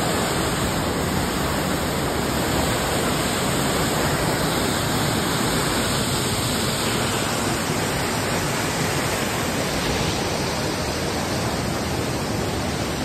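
Waterfall cascading down rocks into a churning pool, a steady rush of falling water close to the microphone.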